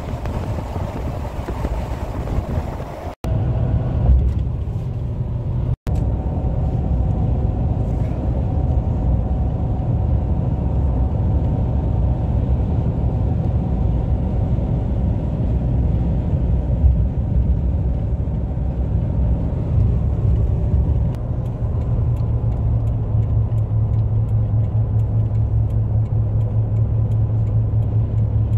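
Car driving, heard from inside the cabin: a steady low rumble of tyres and engine. Wind hiss in the first few seconds, and two brief dropouts where the recording is cut.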